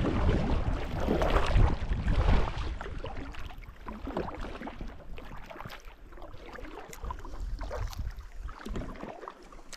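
Paddling a packraft on a lake: water splashing and sloshing against the small boat, louder for the first few seconds and then softer.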